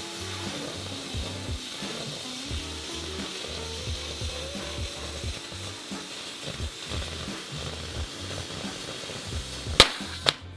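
Steady crackling sizzle of a stick-welding arc on steel pipe, under background music with a beat. The sizzle stops with two sharp clicks near the end.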